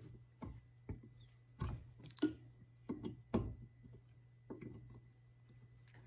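Electrical plugs being pulled out of and handled at a duplex outlet in a metal box: a scattered series of light clicks and knocks, about seven over a few seconds, over a faint steady low hum.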